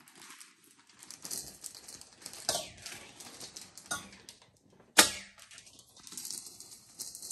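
Paper rustling and crinkling as presents are handled and unwrapped, with a few sharp clicks and snaps; the loudest snap comes about five seconds in.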